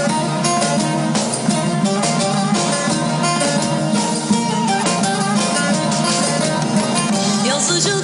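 Turkish folk music played live as an instrumental interlude: bağlama (long-necked saz) picked in quick runs of notes over keyboard accompaniment.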